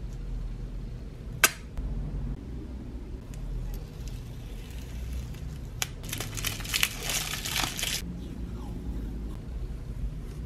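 Hands handling and peeling rolls of washi tape. A sharp tap comes about a second and a half in, and past the middle there are about two seconds of crinkling paper-and-tape noise, over a steady low rumble.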